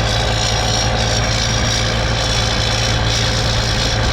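Engine of a giant three-wheeler running steadily at low revs while it is driven slowly, with no revving.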